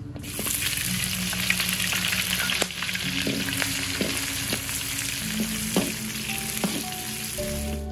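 Sliced shallots, garlic, chillies, lime leaves and galangal hitting hot oil in an aluminium wok, sizzling hard from the moment they land. A metal spatula clicks and scrapes against the wok several times as they are stirred.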